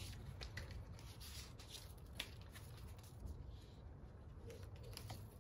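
Faint rustling and rubbing of EVA foam handlebar tape being pulled and wrapped around a road bike's drop handlebar, with a few small clicks.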